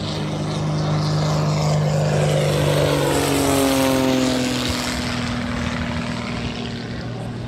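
Single-engine propeller aerobatic plane making a low fly-past. Its engine and propeller note grows louder, peaks about three to four seconds in, drops in pitch as it passes, and fades.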